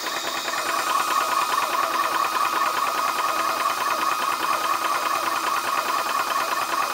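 ToAuto 4500 PSI PCP high-pressure air compressor running loud and steady under load near the top of its fill, close to its automatic cut-off: a fast, even pulsing with a steady whine and hiss.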